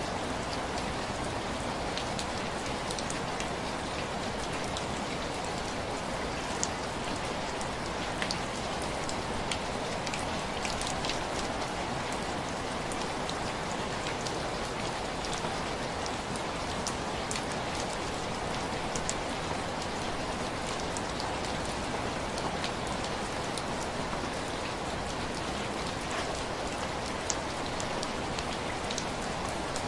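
Steady heavy rain falling, with scattered small sharp ticks throughout.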